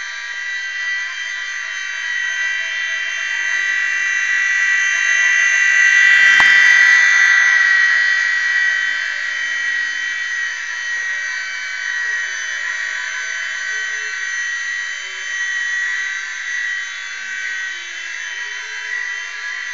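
E-flite Blade mSR micro RC helicopter in flight: a steady, high-pitched, wasp-like buzz from its small electric motors and rotor. It swells louder about six seconds in, with a brief click as it does.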